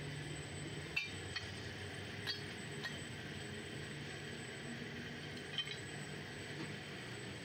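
Scrap aluminium pieces clinking as they are dropped into a hot crucible: a handful of sharp, separate clinks over the steady hum of the furnace's electric blower.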